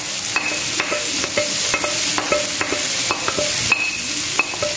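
Garlic, sweet corn kernels, sausage and meatball slices sizzling in oil in a non-stick wok: a steady hiss with many small scattered ticks.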